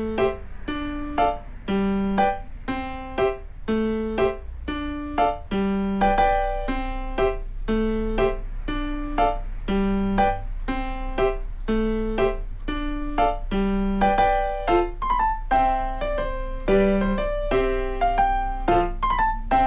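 Background music: a light piano or electric-piano tune of evenly paced notes, about two to three a second, over a steady low bass.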